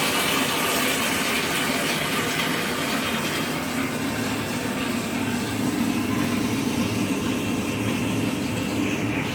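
Water running steadily into an empty Briggs Conserver toilet tank through its fill valve, a constant rushing hiss as the tank fills from empty.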